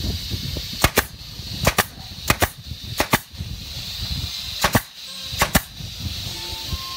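Red ZSK pneumatic nailer, fed by an air hose, firing nails into a wooden rail: about nine sharp shots at irregular spacing, several in quick pairs, over a steady hiss.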